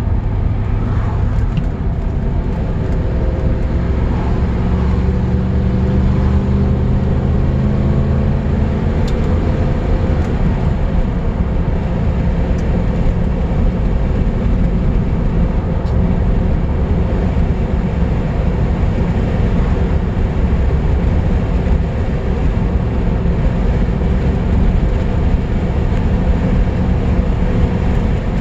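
Lancia Thema 8.32's Ferrari V8 engine running under way. It climbs steadily in pitch from about four to eight seconds in as the car accelerates, then runs on at a steadier pitch with continuous road noise.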